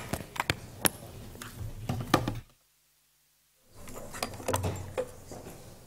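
Scattered knocks and clunks of handling at a lectern while a laptop is set up, over a low rumble of room noise; the sound cuts out completely for about a second in the middle.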